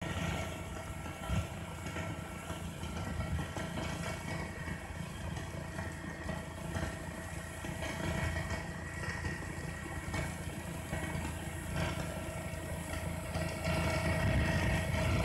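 Large self-propelled rotary snow blower running under load while throwing snow: a steady mechanical drone with a faint steady whine, growing a little louder near the end.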